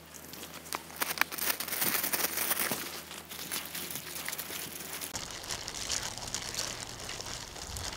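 Disposable plastic glove crinkling and wet seasoning paste squishing as a gloved hand mixes chili paste and greens in a glass bowl, with scattered sharp clicks; quieter for the first second, busier after that.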